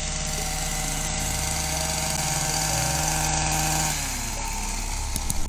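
A vehicle engine idling steadily, a little quieter from about four seconds in.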